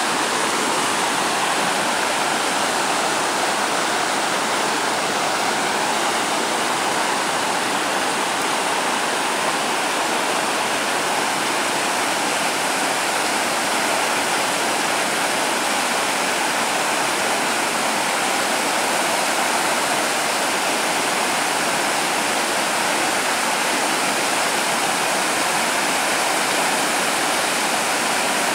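Creek water rushing steadily over rocks in shallow rapids.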